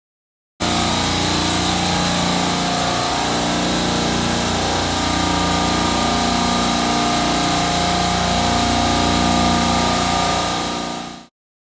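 Fieldpiece VP85 vacuum pump running steadily, pulling a deep vacuum on a refrigeration circuit that is down near 550 microns. It starts abruptly about half a second in and cuts off shortly before the end.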